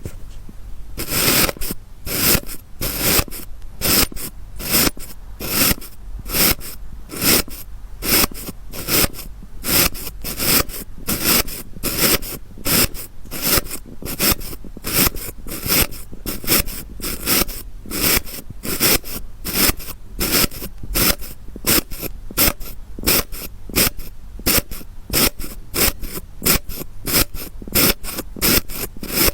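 Kinetic sand being cut and scraped, a run of short crunchy scraping strokes about two to three a second.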